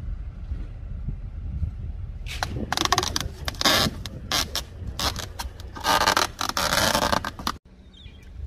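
Packing tape being pulled off its roll in several loud, rasping pulls to seal a styrofoam fish box, the longest pull coming near the end.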